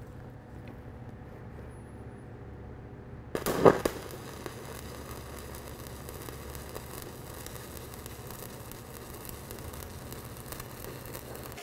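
Stick (shielded metal arc) welding with a 7018 5/32-inch electrode. After a low hum, the arc strikes with a loud pop about three and a half seconds in, then crackles steadily as the bead is run.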